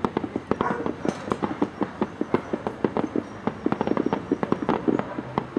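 Aerial firework shells bursting: a dense, irregular run of sharp crackling pops, several a second, starting abruptly.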